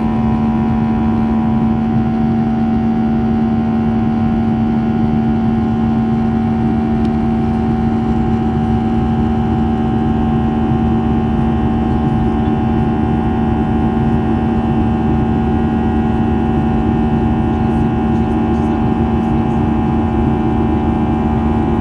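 Steady in-cabin noise of a Boeing 737-800's CFM56-7B turbofan engines in flight: an even drone with a strong low hum and several steady higher tones.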